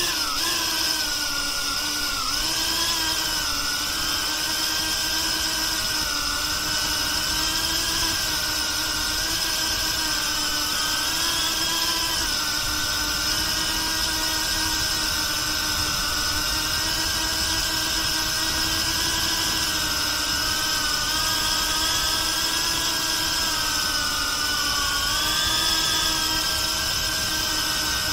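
BetaFPV Pavo360 FPV drone's motors and propellers buzzing steadily in flight: one high, whining tone whose pitch wavers a little up and down as the throttle shifts.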